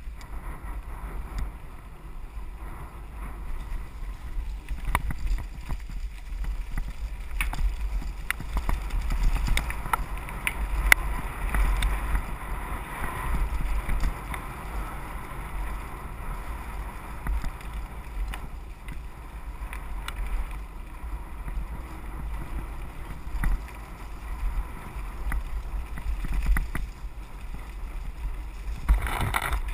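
Wind buffeting a camera microphone carried on a mountain bike riding down a dirt singletrack: a steady low rumble with scattered clicks and rattles from the bike over the rough ground.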